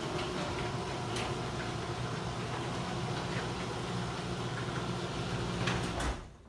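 Liftmaster half-horsepower screw-drive garage door opener running smoothly as it closes the door: a steady motor hum with a few faint clicks, cutting off suddenly about six seconds in.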